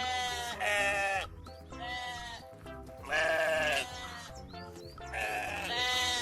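Recorded sheep bleating, several wavering bleats in a row, over soft background music.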